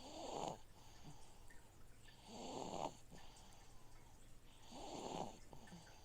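A sleeping baby snoring quietly: three snoring breaths about two and a half seconds apart, over the steady low hum of an aquarium filter cycling water.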